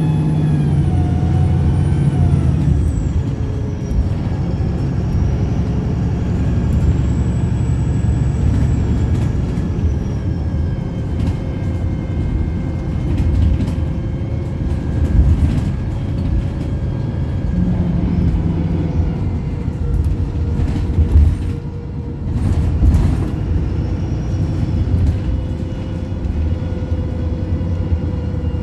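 Optare Pulsar single-deck bus engine heard from on board, its pitch rising and falling as it revs over the first few seconds, then running steadier with a faint constant whine. A few short, sharp sounds come about two-thirds of the way through.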